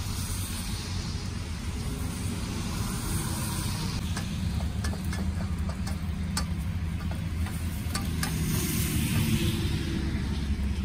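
Steady roar of road traffic coming in through open car windows, a little louder near the end, with a run of light clicks and taps in the middle.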